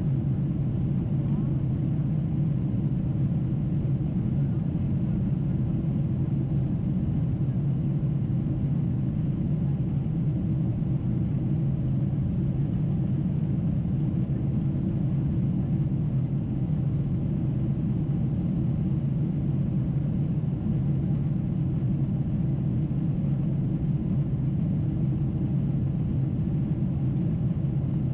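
Steady low cabin rumble inside a Boeing 747-8 in its climb after takeoff: the four General Electric GEnx-2B engines and the airflow over the fuselage, an even, unchanging drone.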